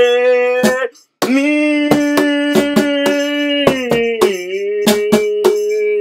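A man singing long held notes over cajon hits at a steady beat. The voice breaks off briefly about a second in, holds another long note, then steps down to a lower one near the end.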